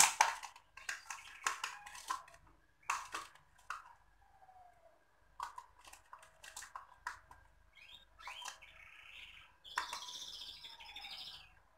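Citrus peel being grated over a mixing bowl: a quick run of short rasping scrapes in the first few seconds, then a few sparser strokes. From about eight seconds in there is a softer, higher chattering sound.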